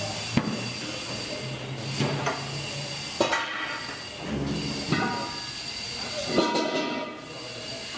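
Tire-shop work noise: a steady hiss of air with about five sharp metallic knocks spread a second or so apart.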